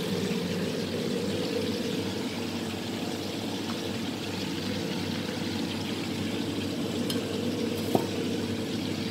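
Cauliflower deep-frying in a wok of hot oil: a steady bubbling of the oil, with a low hum beneath and a light knock about eight seconds in.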